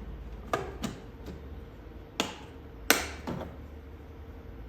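A few sharp clicks and knocks of hard plastic headlight-housing parts being handled and fitted back together, the loudest about three seconds in.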